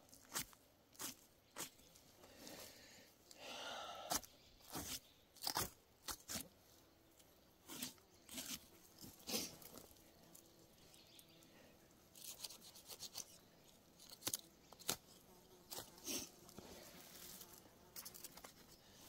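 Knife cutting through a black bear's hide and flesh around the neck during skinning: irregular short slicing and tearing strokes.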